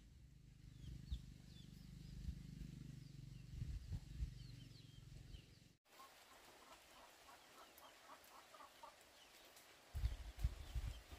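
Chickens clucking in a quick run of short notes in the second half, with small birds chirping faintly in the first half. A low rumble with a few thumps lies under the first half and comes back near the end.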